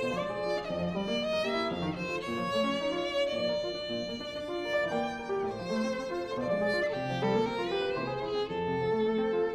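Violin and grand piano playing classical chamber music: long, wavering violin notes over fast-moving piano chords.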